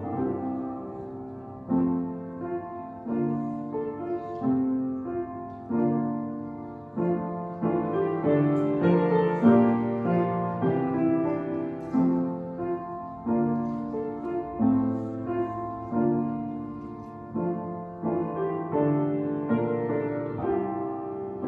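Piano played solo: a slow piece of chords and melody notes struck every second or so, each fading away before the next.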